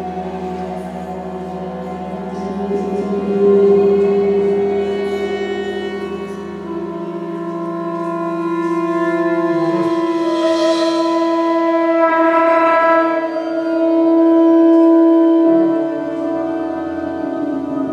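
Chamber orchestra playing contemporary classical music in long sustained notes, several held pitches layered over one another, swelling louder twice and easing back.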